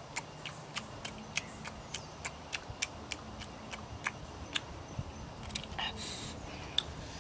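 Close-up eating sounds of someone picking grilled fish off the bone with his mouth: irregular sharp smacking clicks, about three a second.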